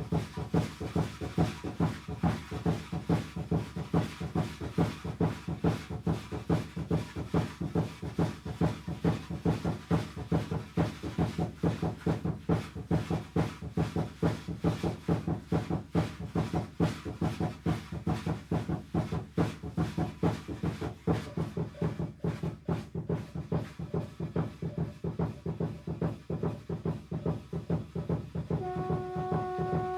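Aztec dance drumming: a fast, even beat of drum strikes, several a second, going without a break. Near the end a long, steady horn-like tone comes in over the drum.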